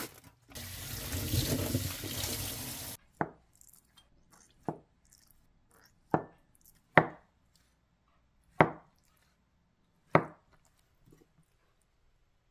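Water pouring into a stainless sink for about two and a half seconds as a tray of tofu is drained. Then a kitchen knife cuts down through a block of tofu onto a wooden cutting board, knocking about six times, a second or so apart.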